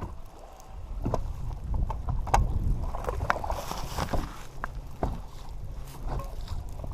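Wind rumbling on the microphone, with a few sharp knocks and clatters scattered through.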